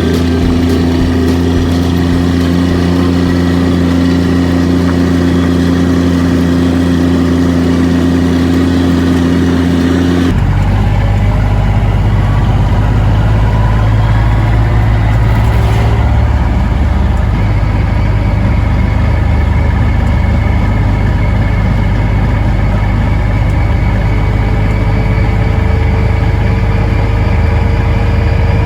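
Vehicle engine running steadily. About ten seconds in, the sound changes abruptly to a deeper, rougher rumble, with a tone slowly rising near the end.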